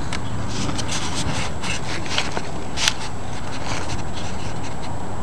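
Close crackling rustles and scrapes over a steady low rumble, with one sharper crackle about three seconds in.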